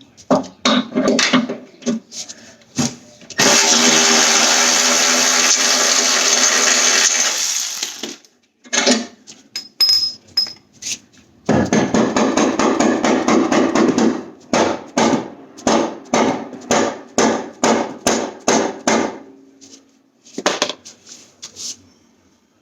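Tools at work on car suspension parts: sharp metal knocks, then a power tool running for about four seconds, then a long run of rapid, regular knocks, about two to three a second.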